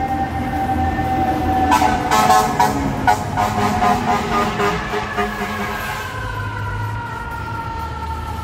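Fire engine siren from the street: a steady high tone, then from about two seconds in a few seconds of loud, choppy horn blasts, then a long tone whose pitch slowly falls.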